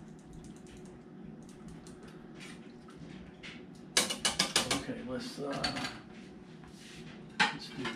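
Metal tongs clicking and scraping against a cast-iron pot while the braised short ribs are handled. There is light clicking at first, a quick clatter of sharp clicks about four seconds in, and another sharp click near the end.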